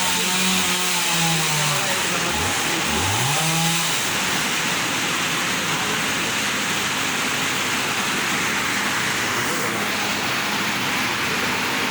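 Chainsaw running at high throttle. It eases off and revs up again about three seconds in, then runs on steadily.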